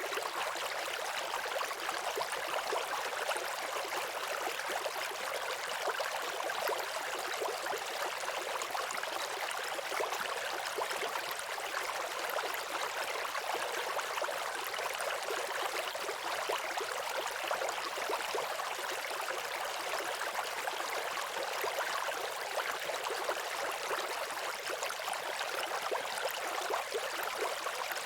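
Waterfall: a steady, even rush of falling water with little low rumble.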